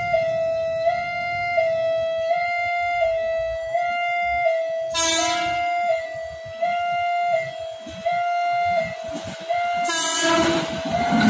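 Railway level-crossing warning alarm sounding a steady electronic two-tone pattern that alternates pitch about every 0.7 seconds. An approaching KRL electric commuter train sounds its horn in two short blasts, about five seconds in and again near the end.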